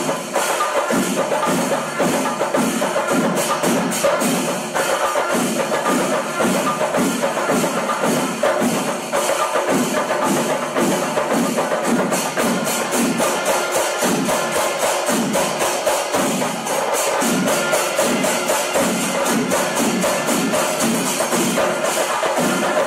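Background music with a fast, steady percussion beat.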